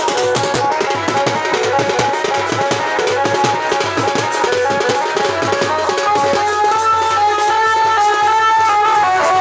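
Music with a fast hand-drum beat, tabla-like, joined about six seconds in by a held melodic line as the drumming thins out.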